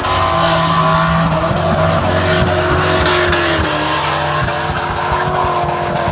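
Drift cars' engines running at high revs, the pitch dipping and climbing again as the throttle is worked, over the squeal of tyres sliding sideways.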